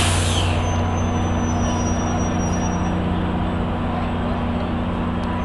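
Metrolink EMD F59PH diesel locomotive idling at close range: a steady low engine drone, with a faint high-pitched whine coming and going above it.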